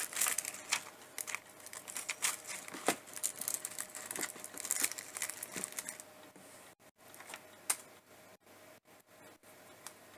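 Crinkling and rustling of packaging as hands rummage through a container of card-making embellishments. Busy for about the first six seconds, then dying down to a few light ticks.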